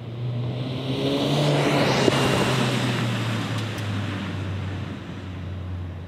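Volkswagen MK8 Golf GTI's turbocharged four-cylinder exhaust as the car drives past and away, loudest about one to two seconds in, then dropping in pitch and fading.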